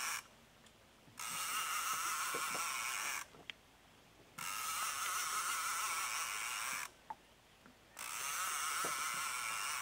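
Fishing reel buzzing in three bursts of two to three seconds, each starting and stopping sharply with about a second's pause between: line running through the reel while a hooked Wels catfish is played.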